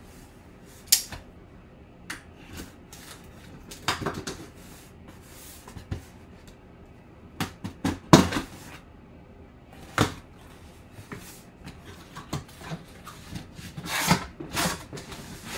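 A sealed cardboard box being handled and opened: a knife slitting its packing tape and the cardboard flaps being pulled open, heard as scattered scrapes, rustles and knocks, the loudest about eight seconds in.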